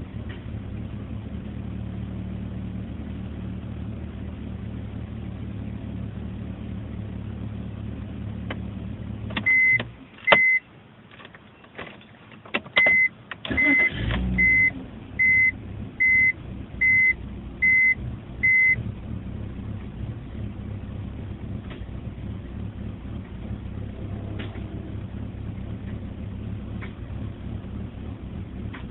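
BMW E46 325i's 2.5-litre straight-six idling roughly with occasional faint pops. About ten seconds in the engine is switched off with two short beeps. A few seconds later it is restarted, and the car's chime beeps about eight times, evenly spaced, before the idle settles again.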